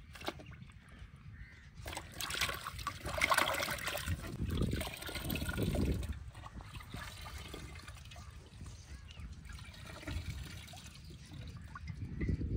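Water sloshing and splashing in a large steel pot as cauliflower heads are rubbed and turned by hand to wash them. The splashing is busiest in the first half and settles to softer dribbling later.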